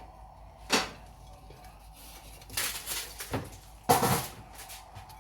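Kitchen dishes and utensils knocking and clattering while food is handled. There is a single knock about a second in, a run of clatter in the middle, and the loudest clatter about four seconds in.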